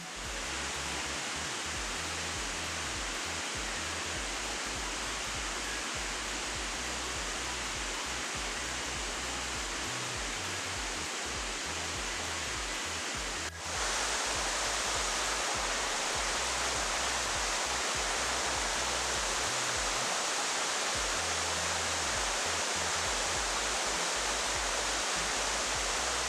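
Rushing water of a waterfall: a steady, dense rush. About halfway through it cuts to a louder, brighter rush of water.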